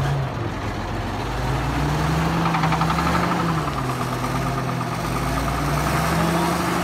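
Old truck engine running and revved twice, its pitch climbing and dropping back each time, while it pours out thick exhaust smoke.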